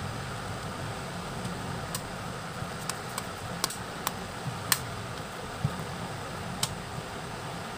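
A smartphone's plastic housing being pressed together by hand, giving several small sharp clicks over a few seconds as its clips snap into place. Underneath is a steady fan hum.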